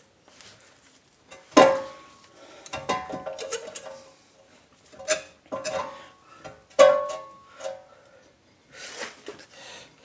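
Metal clanks and knocks from steel tools and C-clamps being handled on a brake caliper: several sharp hits, each with a brief ringing tone, and lighter clicks between them. The loudest hits come about one and a half, five and seven seconds in.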